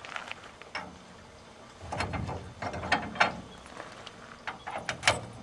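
A steel locking hitch pin being slid through a truck's receiver hitch and drawbar and locked in place: a run of separate metal clicks and clinks, thickest in the middle, with a sharp click near the end.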